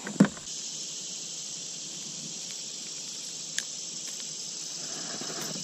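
Steady high-pitched chorus of insects from the trees, with a sharp knock about a quarter second in and a single small click about three and a half seconds in.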